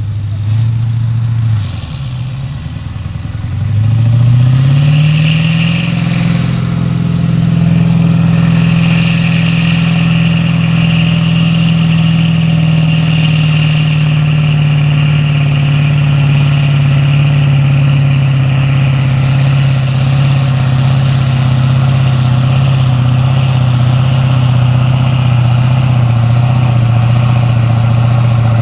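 Kirovets K-700-class tractor's tuned diesel engine under full load pulling a brake sled. It dips briefly, revs up steeply about three seconds in, and then holds high and steady, with a steady high whine over the engine note.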